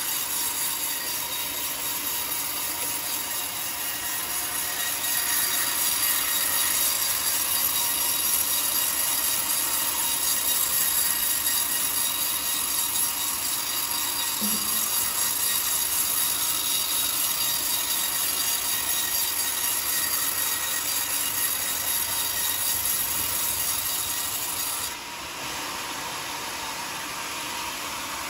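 Band sawmill blade cutting lengthwise through a large teak log, a steady high-pitched whining hiss of steel in wood. Near the end the sound drops and thins.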